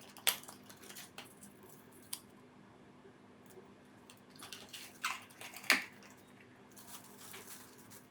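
Handling noise: a few sharp clicks, the loudest about a third of a second in and near six seconds in, with brief rustling between, over a faint steady hum.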